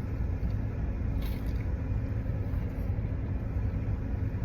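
Steady low rumble, with a faint click about a second in.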